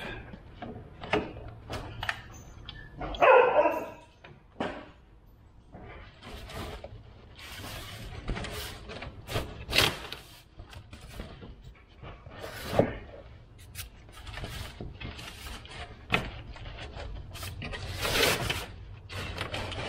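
Scattered clicks, knocks and scrapes of hands and tools working on parts in a pickup's engine bay as a part is taken off. One short pitched call sounds about three seconds in.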